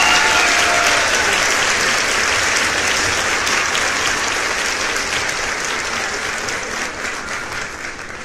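Crowd applauding, the clapping dying away gradually toward the end, with the last held notes of music fading out in the first second.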